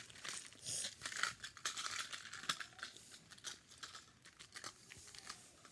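Small plastic miniature pieces and a plastic storage container being handled: quick light clicks and rustling, busiest in the first three seconds and then thinning out.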